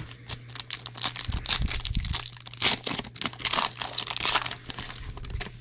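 Plastic trading-card pack wrapper crinkling and tearing as it is pulled open by hand: an irregular run of crackles throughout.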